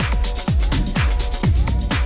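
Background electronic dance music with a steady kick drum about twice a second, sustained synth notes and crisp hi-hat ticks.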